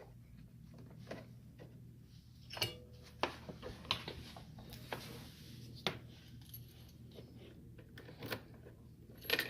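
Scattered light metallic clicks and clinks, about half a dozen spread over several seconds, from the small metal parts of a keyed parking brake lock being handled and fitted by hand.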